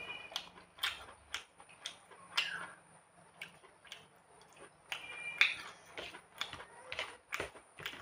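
Close-up mouth sounds of a person eating rice by hand: irregular wet lip smacks and chewing clicks, the loudest about five and a half seconds in.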